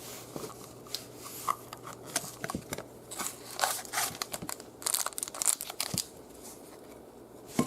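Plastic wrapping on a pack of trading cards being torn open and crinkled, in irregular crackles that are busiest about five seconds in.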